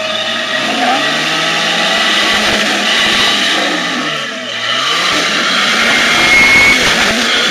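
Off-road 4x4 engine revving under load, its pitch dropping about halfway through and then climbing again, with a rushing noise of tyres and terrain underneath.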